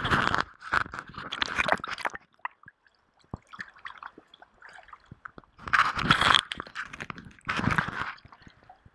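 Water sloshing and splashing against a waterproof camera housing held at the surface of a river, in irregular bursts with quieter gaps between them.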